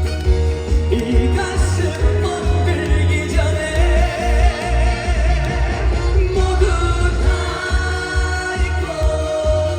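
Live trot song: a male singer holding long notes with vibrato over a full accompaniment with a heavy, pulsing bass beat.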